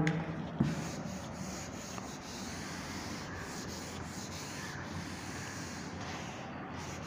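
Board duster rubbing across a chalkboard, wiping off chalk writing: a steady scrubbing noise, with a light knock about half a second in.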